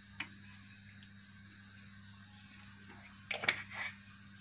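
Quiet kitchen background with a light click just after the start, then a few short clatters about three seconds in: a metal spoon handled in a frying pan of raw minced meat and onion.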